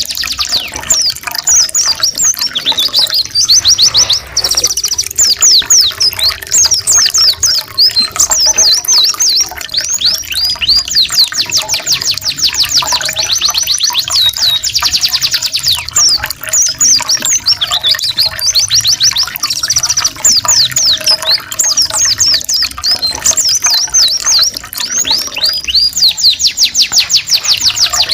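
Domestic canary and white-eye (pleci) song mixed together: long, fast high trills and rolls of rapidly repeated notes in phrases with short breaks, over a steady trickle of running water.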